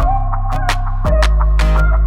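Background music with a steady beat: a held deep bass, regular percussive hits and a high lead melody that steps in pitch.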